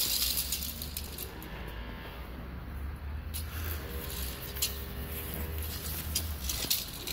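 Light metallic rattling and clicking of a toy doll's stroller with a thin metal frame and small plastic wheels, pushed over paving slabs, over a steady low rumble.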